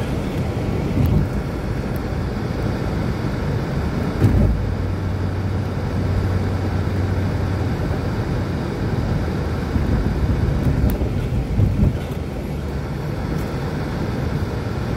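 Car driving, heard from inside the cabin: a steady low rumble of engine and tyres on the road, with a low hum for a few seconds in the middle and a few short low thumps.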